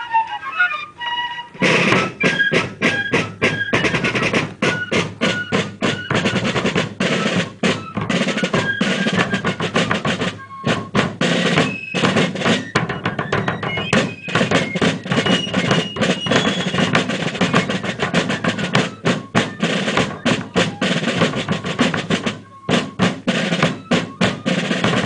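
Fife and drum corps music: snare drums playing fast rolls and beatings over a bass drum, with short fife notes above. The drumming comes in about a second and a half in, after the last fife note fades.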